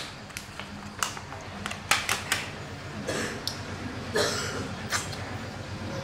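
Eating and handling of strawberries: scattered sharp clicks and smacks at uneven intervals, with two short rustles near the middle, over a steady low hum.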